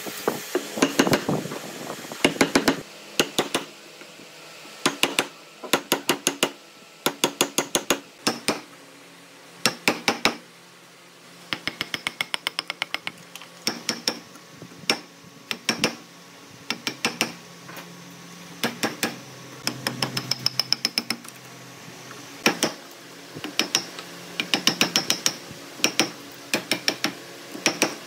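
Hammer blows on a wood chisel, chopping waste out of a clamped pine block between saw kerfs. The blows come in quick runs of sharp taps with short pauses between them, some with a slight metallic ring.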